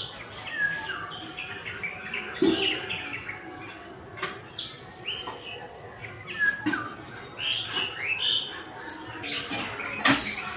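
Songbirds chirping and calling in short whistled notes, many sliding downward, over a steady high hiss. A sharp click comes near the end.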